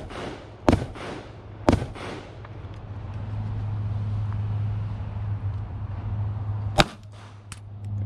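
Three pistol shots, each a sharp crack with a short echo: two about a second apart near the start and one more near the end. A steady low hum runs under the middle stretch.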